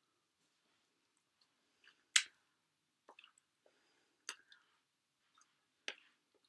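A few soft clicks and smacks from a person silently signing, over quiet room tone. The sharpest comes about two seconds in, with others near four and six seconds.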